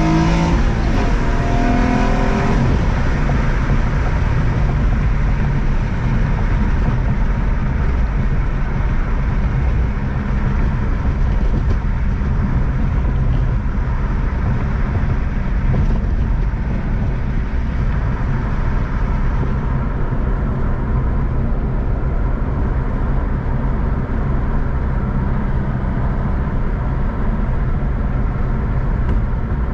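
Infiniti G35's 3.5-litre V6 engine and tyre noise as the car is driven at a steady pace. The engine pitch shifts briefly in the first couple of seconds, then holds fairly even.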